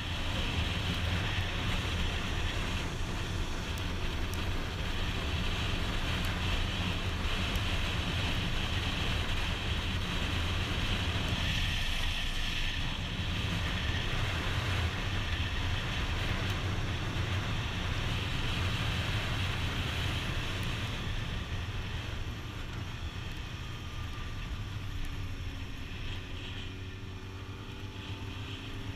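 Wind rushing over a camera on a sport motorcycle at highway speed, with the bike's engine running underneath as a steady low drone. It gets a little quieter over the last several seconds, and faint shifts in engine pitch come through near the end.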